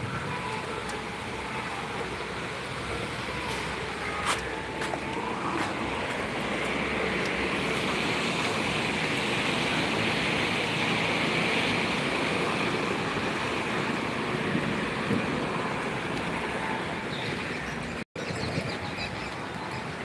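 Road traffic on a wet road: a steady hiss of tyres and engines that swells in the middle as vehicles pass, then eases off. The sound cuts out for an instant near the end.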